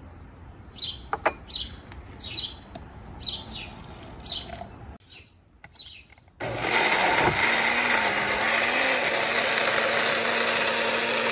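Birds chirping repeatedly in the background. About six seconds in, a personal blender's motor starts and runs steadily at full speed, pureeing fresh mint, onion, chilies and water into a green chutney.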